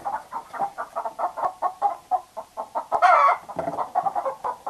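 Chickens clucking in rapid alarm, short calls at about four or five a second, with one louder squawk about three seconds in. It is the flock's reaction to a fox raiding the pen.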